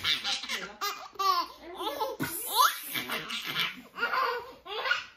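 A toddler laughing in repeated bursts of giggles and squeals, with a man laughing along.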